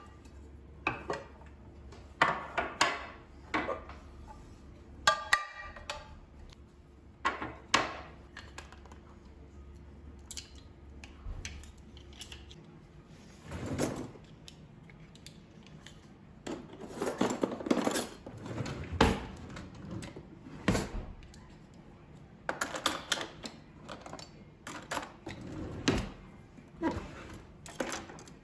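Dishes and utensils being handled: irregular clinks, knocks and clatters as things are picked up and set down. A low hum underneath stops about twelve seconds in.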